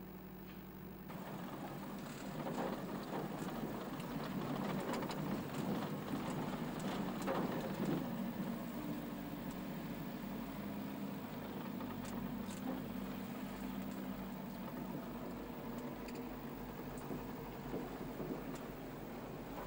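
Car driving slowly on a gravel road, heard from inside the cabin: the engine runs steadily under the noise of tyres on gravel, which grows louder about a second in.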